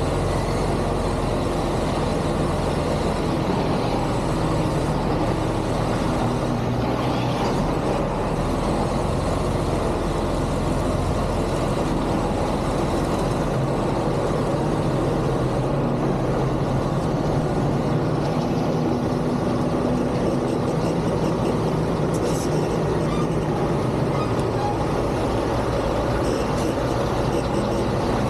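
Semi truck's diesel engine running steadily at low revs while the rig reverses slowly.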